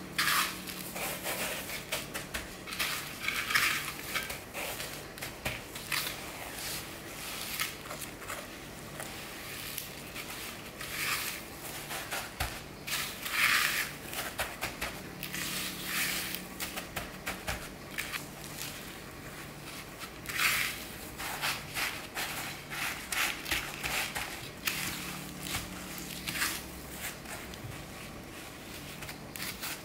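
Hands pressing and turning pork cutlets in dry panko breadcrumbs on an aluminium tray: an irregular crunching and rustling of crumbs, with a few louder crunches.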